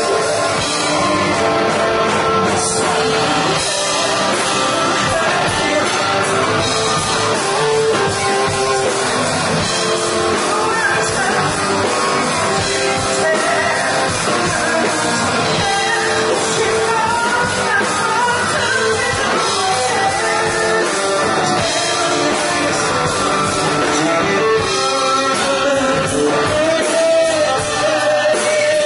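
A live rock band plays while male vocalists sing into handheld microphones, amplified through the venue's sound system.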